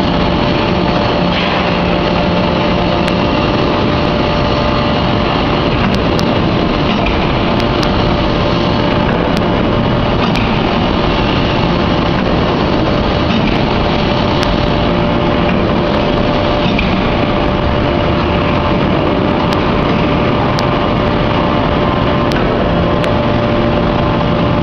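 Anyang hydraulic open-die forging press running: a loud, steady machinery drone with a constant whine and scattered sharp ticks.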